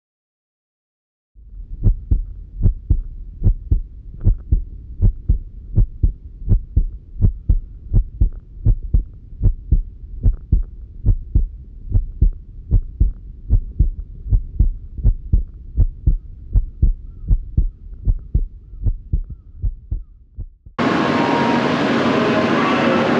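Low thumps repeating evenly, about two or three a second. A little before the end they give way abruptly to the loud, steady running noise of a train.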